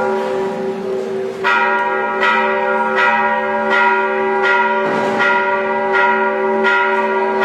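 Church bell struck over and over, about once every three-quarters of a second, its ringing hum carrying on between strikes.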